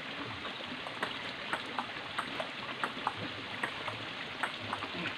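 Table tennis rally: a ping-pong ball clicking off paddles and the table, a few sharp clicks a second in an uneven rhythm, over a steady hiss.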